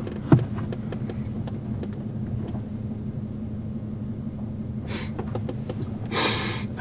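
Pickup truck engine idling with a steady low hum, heard from inside the cab. A short rustling hiss comes about five seconds in and again near the end.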